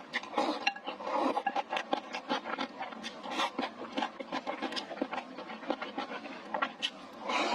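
Close-miked chewing and crunching of spicy stir-fried hot pot, with many quick, irregular wet mouth clicks and crackles.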